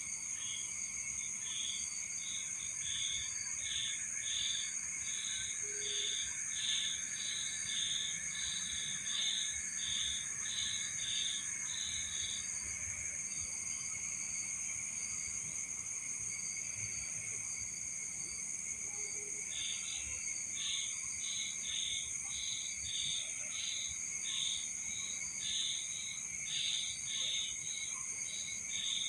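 Crickets and other night insects: several steady high trills, over which one insect chirps rhythmically about twice a second. The chirping stops about twelve seconds in and starts again about seven seconds later.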